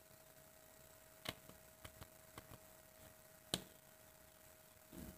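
Near silence with a faint steady hum, broken by a few faint sharp ticks of multimeter probe tips against the laptop battery pack's BMS terminals: two plainer ones, about a second in and past three and a half seconds, and a few smaller ones between them.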